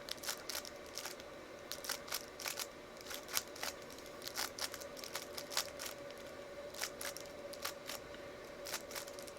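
Plastic 3x3 Rubik's Cube being turned by hand, its layers snapping round in a string of sharp, irregular clicks, as in scrambling the cube for the next solve.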